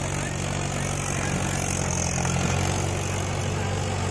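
Mahindra 475 DI tractor's four-cylinder diesel engine running steadily under heavy load as it hauls a fully loaded trolley up a steep dirt slope, its front wheels lifting.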